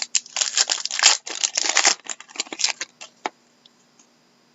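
Crinkling and tearing of a trading-card pack's wrapper, with cards being handled, in a dense run of rustling strokes for about three seconds that ends with a single click.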